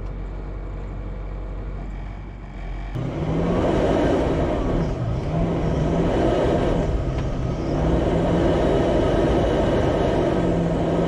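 A four-wheel-drive vehicle's engine running. It is quieter at first. About three seconds in it becomes much louder, its note rising and falling with the throttle over a steady rumble.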